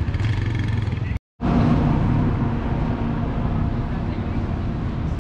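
Street traffic noise with motorcycle engines running steadily. It is broken by a brief dead gap of silence just over a second in.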